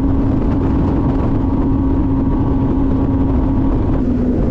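Bass boat's outboard motor running at speed, a steady drone over a low rumble of wind and water, its pitch dipping slightly near the end.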